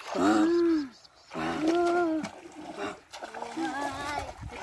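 A person's voice calling out three long, drawn-out excited exclamations, each rising and then falling in pitch, with short gaps between them.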